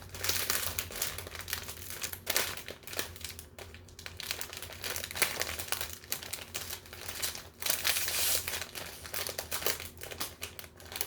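Toy packaging crinkling and rustling in irregular bursts as it is handled and unwrapped by hand.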